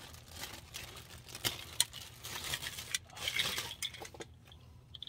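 Light clicks, clinks and rustling as a new power window regulator assembly is handled before it goes into the door.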